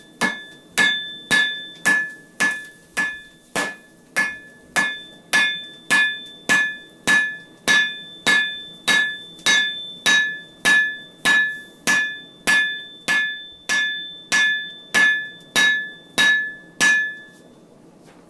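Steady hand-hammer blows on red-hot wire rope over an anvil, about two a second, each with a clear ringing note from the anvil. The blows set the forge welds and flatten the cable into bar stock. The blows stop shortly before the end.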